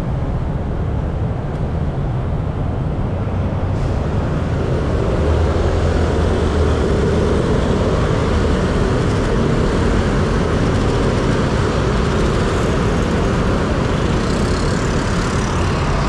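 City street traffic: a crowd of motor scooters and cars running past on the road, a dense steady rumble that grows louder a few seconds in as the traffic moves off.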